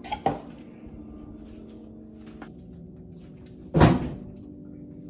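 Louvered closet door being opened: two light clicks just after the start, then one loud knock about four seconds in as the door swings open, over a faint steady hum.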